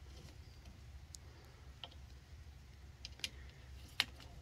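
A few short, sharp clicks and taps of a plastic phone-mount clamp being handled and tightened onto a golf cart's frame bar, the loudest near the end, over a low steady hum.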